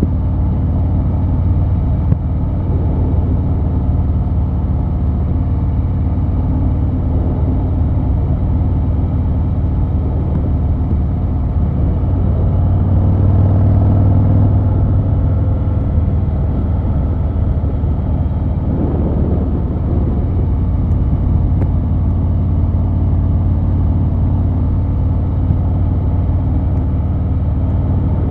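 Harley-Davidson Fat Boy 114's Milwaukee-Eight 114 V-twin running steadily under way at cruising speed, through Vance & Hines Eliminator 300 PCX pipes. It grows a little louder for a couple of seconds about halfway through.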